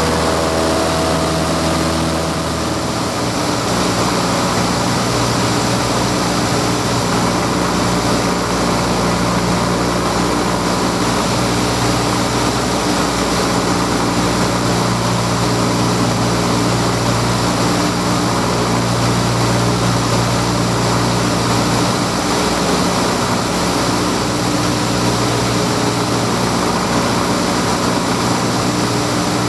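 Single-engine light aircraft's engine and propeller droning steadily in flight, heard from inside the cockpit. The engine note changes about three seconds in, then holds steady.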